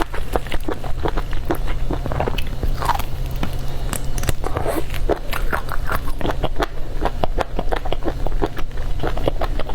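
Close-miked eating of octopus tentacles: a person chewing, with a rapid, continuous run of mouth clicks and smacks.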